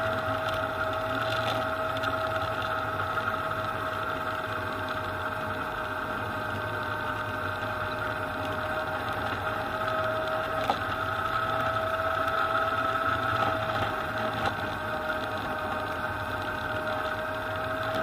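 1959 John Deere 95 combine running steadily while harvesting wheat: a constant mechanical hum with a steady whine over it.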